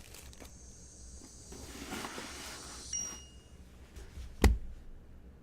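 Faint handling and rustling on a tabletop, with a brief thin high tone about three seconds in and one sharp knock near the end.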